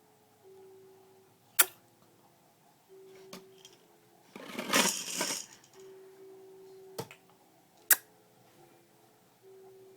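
A baby's lip-smacking kissy noises: four sharp smacks spaced a second or more apart, with a breathy, noisy puff about halfway through.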